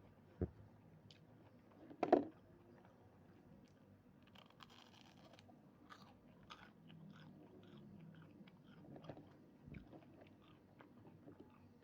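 A person chewing and biting crunchy food, with short crunches and clicks throughout and a louder knock about two seconds in.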